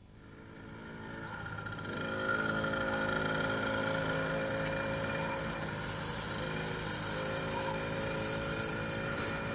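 A child's minibike engine running steadily. It fades in over the first two seconds, then holds a fairly even pitch, which dips briefly and comes back about six to seven seconds in.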